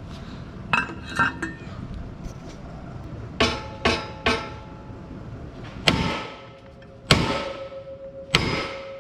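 A hammer strikes a metal ATV bumper rack about eight times, unevenly spaced. Each blow rings at the same pitches, and the last rings on longest.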